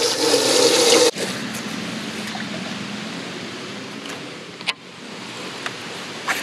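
Water splashing into a bass boat's livewell, with a steady pump hum, cutting off suddenly about a second in. After that a quieter steady hiss, with a sharp click about two-thirds of the way through and another near the end.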